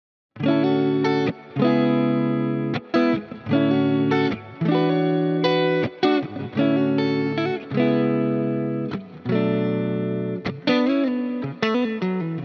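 Fender Player Plus Nashville Telecaster electric guitar playing ringing chords and notes in short phrases, each held for about a second with brief gaps between them. It comes in after a moment of silence, and there are a few bent notes near the end.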